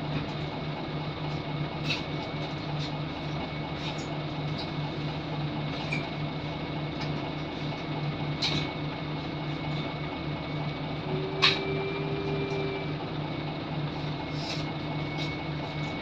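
Cabin sound of a Scania L94UB Wright Solar single-deck bus: a steady low drone with a thin, high-pitched whine over it, the strange whirring noise the bus makes. Scattered light rattles and clicks, with one sharp click about eleven seconds in.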